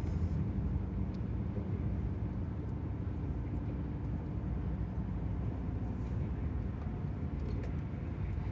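Steady road noise inside a car cruising at highway speed.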